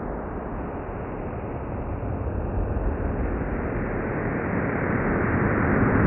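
Sonification of the Event Horizon Telescope image of the black hole Sagittarius A*: a deep, rushing noise with no clear tones that grows louder from about two seconds in. In this sonification, loudness follows the brightness of the glowing ring as the radar-like sweep passes around it.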